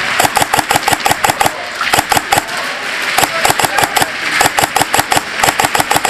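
Airsoft guns firing in rapid strings, about seven sharp shots a second with short pauses between strings, echoing off the walls of an indoor field.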